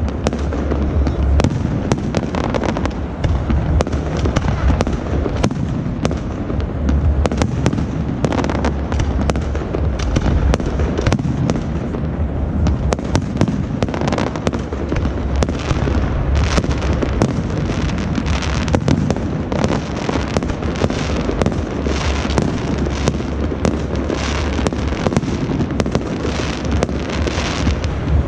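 Fireworks going off in a continuous barrage: many sharp cracks and pops over a steady low rumble of bangs.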